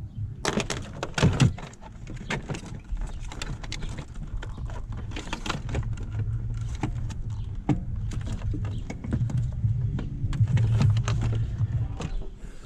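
Irregular plastic clicks, knocks and rattles of relays and fuse block parts being handled and pulled, over a low rumble, with the loudest knocks in the first second and a half.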